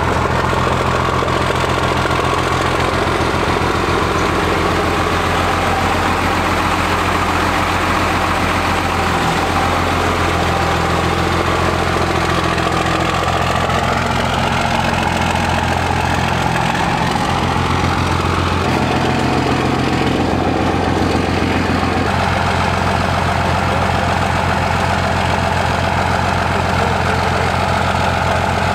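Cummins diesel engine of a second-generation Dodge Ram dually idling steadily, with a low, even diesel clatter.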